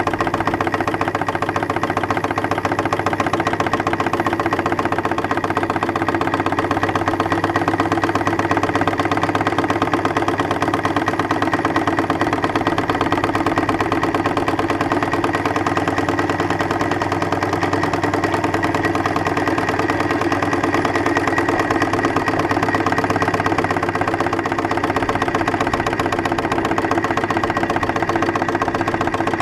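3-inch scale Case steam traction engine running as it is driven along, a steady, rapid mechanical beat.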